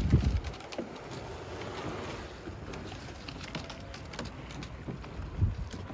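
Wind buffeting the microphone, with a strong gust at the start and another near the end, over a steady low rumble.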